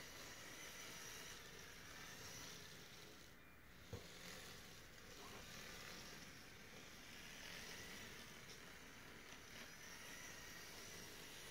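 Faint whine of a Lego Powered Up model's small electric motors driving the tracks, rising and falling in pitch as the speed changes, over a low hiss. A single short click about four seconds in.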